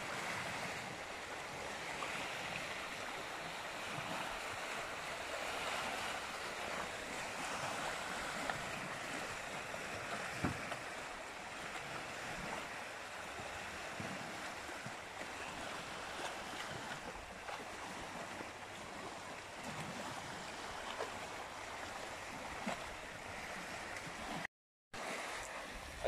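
Choppy wind-driven river waves washing and splashing in a steady rush, with some wind, broken by a brief gap near the end.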